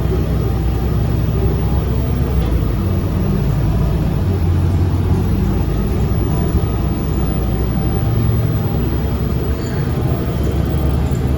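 A city transit bus driving along, heard from inside the passenger cabin: a steady low rumble of engine and road noise.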